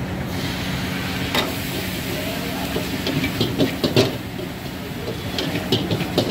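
Metal ladle clanking and scraping against a wok while cauliflower pieces are stir-fried over a gas flame. The clanks come in quick clusters about 3 to 4 s in and again near the end, over a steady rumble.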